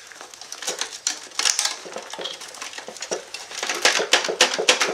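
Wiring-harness wires and plastic and sheet-metal parts of an HP LaserJet Pro 400 color printer being handled and tugged, giving irregular rustling and clicking that is busiest near the end.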